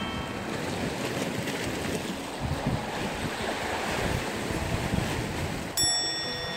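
Sea waves washing against a rocky shore, with wind on the microphone. Near the end a short, bright bell-like chime starts suddenly.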